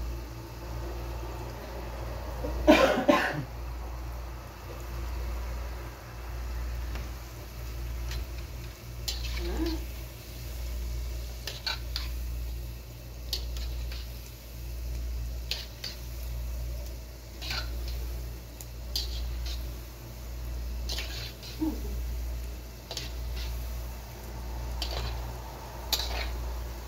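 Gulab jamun balls frying in a carbon-steel wok of oil, a metal spatula tapping and scraping against the wok now and then, over a low hum that swells and fades about once a second. A cough about three seconds in is the loudest sound.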